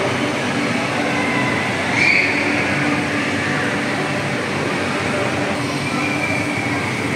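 Steady rushing hum of the electric air blower that keeps an inflatable bouncy obstacle course and slide inflated, with a low motor drone and no change in level.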